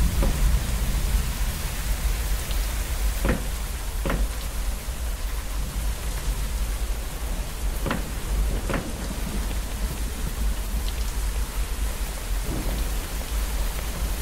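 Steady rain hissing over a low rumble, with single water drops falling clearly now and then, about five drips, mostly in pairs.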